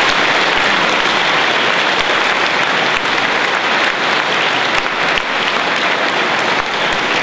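Hundreds of school pupils applauding together in a large sports hall, steady and sustained, easing slightly near the end.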